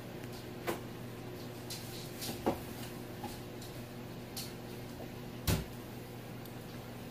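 Scattered light household knocks and clicks over a steady low hum, with a duller, stronger thump about five and a half seconds in.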